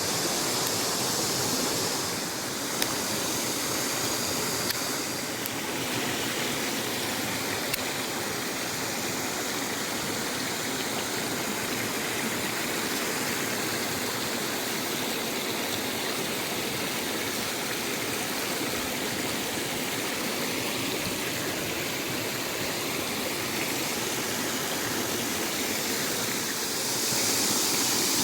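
Mountain stream running full after rain: a steady rush of water over rocks. A few sharp clicks stand out about 3, 5 and 8 seconds in.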